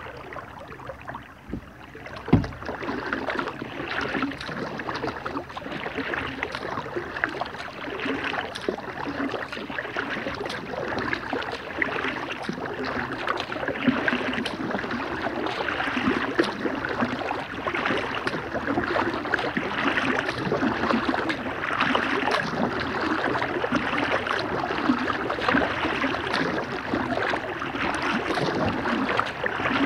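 Kayak paddling on a calm river: steady splashing and trickling of paddle water, with one sharp knock about two seconds in.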